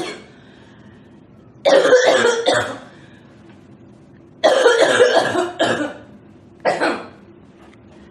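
A girl coughing in fits: the end of one cough at the very start, then a run of several coughs at about two seconds, another longer run at about four and a half to six seconds, and one short cough near seven seconds.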